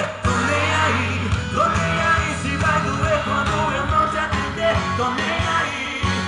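A song with singing and a steady bass line played loudly through a small bicycle-mounted sound system under test.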